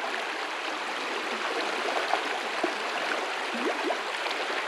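River water running, a steady rush with small gurgles here and there.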